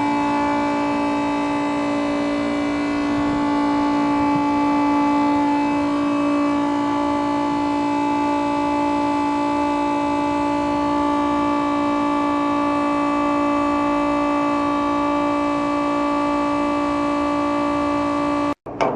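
Electric diesel transfer pump on a movable fuel tank running with a steady whine while pumping fuel, then switched off abruptly near the end.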